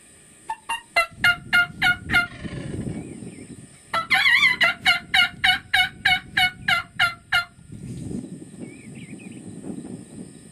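Wild turkey calling: a run of about seven quick, sharp notes, then after a short pause a louder run of about a dozen, about four notes a second.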